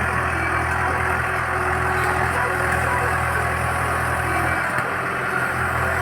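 Engine of a construction machine running steadily at an even speed, a constant low drone with no revving.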